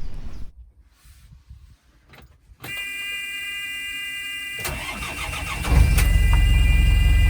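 After a quiet moment, the narrowboat's panel warning buzzer sounds steadily as the ignition is switched on. The diesel engine then cranks on the starter for about a second, catches and settles into a loud, steady run: a cold start before casting off.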